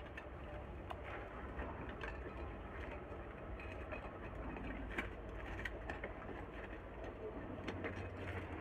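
Faint small clicks and scrapes of a nut being fitted onto the terminal bolt of a cooking heater's coil element, a few scattered taps over a low steady background hum.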